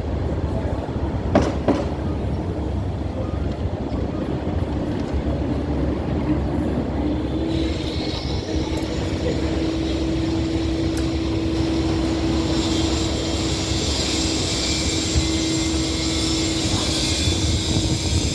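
Loud, continuous drilling noise from street work. A steady low rumble runs throughout; about seven seconds in a steady hum joins it, and a hiss grows stronger from about twelve seconds in.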